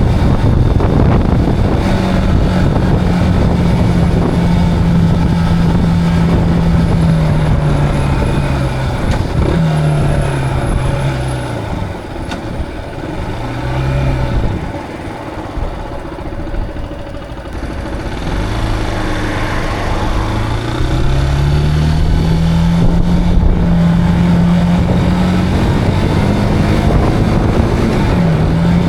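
Zontes cruiser motorcycle engine under way. The revs hold steady, then fall in steps as the bike slows, drop to their lowest around the middle, and rise again in stages as it accelerates through the gears, with a fresh drop near the end.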